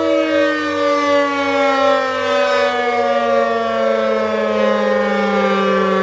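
Civil defense siren sounding several tones at once, all falling slowly and steadily in pitch throughout, at a constant loud level.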